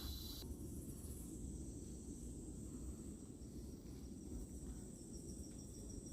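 Insects trilling steadily with a high, thin sound, one of them pulsing faster from about halfway in, over a constant low rumble.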